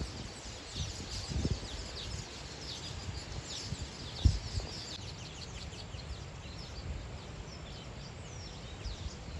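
Birds chirping and calling in quick short notes, over a steady low rumble, with a single thump about four seconds in.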